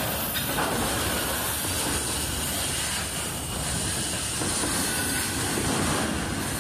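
Freight train passing close by as its mid-train diesel locomotives (distributed power units) roll past, engine noise mixed with the steady noise of steel wheels on rail.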